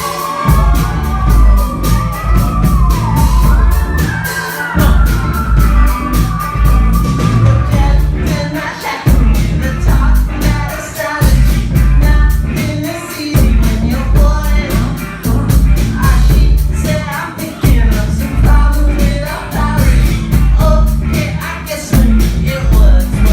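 Live band playing a rock song with singing, a steady drum beat and heavy bass; the bass and kick drop out briefly several times.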